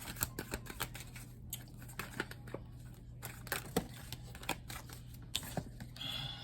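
Tarot cards being shuffled and handled, a string of irregular light snaps and taps, thicker at first and thinning out.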